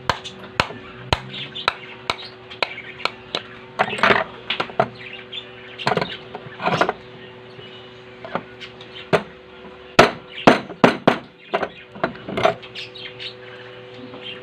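Sharp taps and knocks on small metal machine parts as a sewing machine flywheel and its key are worked back into place. The taps come evenly about twice a second at first, then in louder irregular clusters, over a steady low hum.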